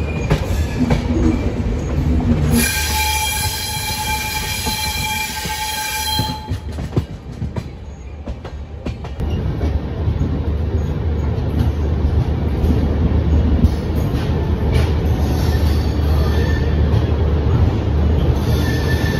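Passenger train running and rolling into a station, heard from the coach doorway as a steady low rumble of the running gear. A train horn sounds one steady note for about three and a half seconds, starting a few seconds in.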